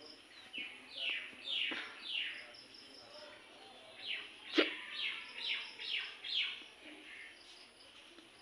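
Bird calls: two runs of short chirps that each slide downward in pitch. About four and a half seconds in, one sharp, loud hiccup sounds over them.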